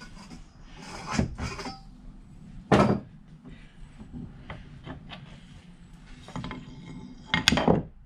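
Metal being handled at a cast-iron bench vise: scraping and rubbing with a few clunks, two of them louder, about three seconds in and near the end.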